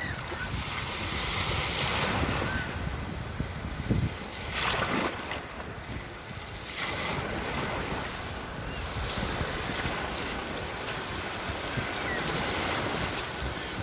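Sea waves washing in and drawing back, the surf swelling and easing every few seconds, strongest about four to five seconds in. Wind rumbles low on the microphone underneath.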